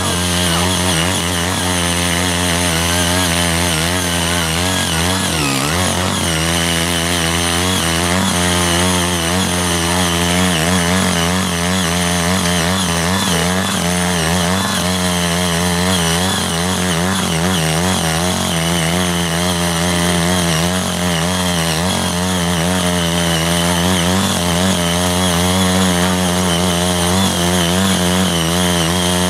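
CY80 walk-behind power tiller's small engine running steadily under load as its rotary tines churn cloddy soil. The engine speed sags briefly about five seconds in, then recovers.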